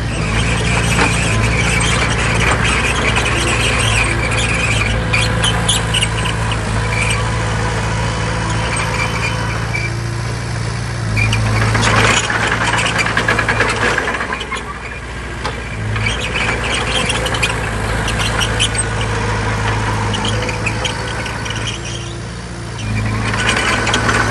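Bulldozer's diesel engine working steadily, with metallic squealing and clanking from its steel tracks. The engine eases off briefly twice, about the middle and shortly before the end.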